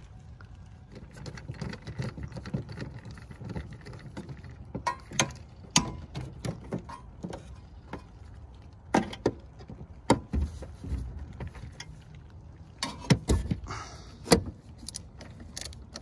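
A screwdriver and loose metal screws clicking and clattering against the sheet-metal refrigerator compartment while its mounting screws are taken out, with scattered sharp clicks and a few louder knocks.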